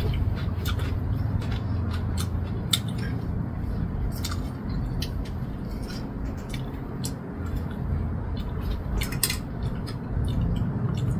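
Cutlery and a plate in use while steamed chicken is pulled apart: scattered light clicks and clinks of forks against the dish. A steady low hum runs underneath.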